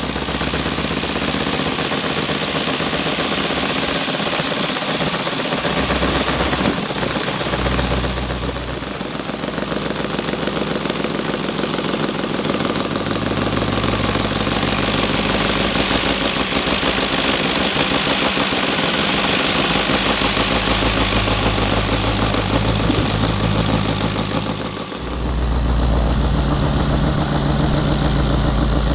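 OS FR5 300 five-cylinder four-stroke radial model engine running at high throttle with its ring exhaust system fitted. About twenty-five seconds in it throttles back to a lower, deeper run.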